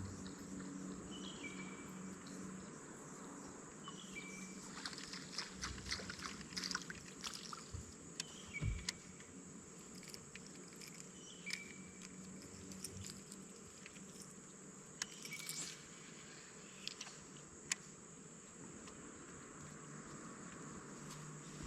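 Quiet open-air ambience on the water: a faint steady hiss with short high chirps every second or two, and scattered light clicks and taps, clustered about a third of the way in and again past the middle.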